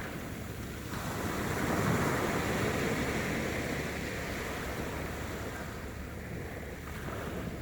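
Sea waves surging and washing, one swell building to its loudest about two seconds in and then easing off. There is some wind on the microphone.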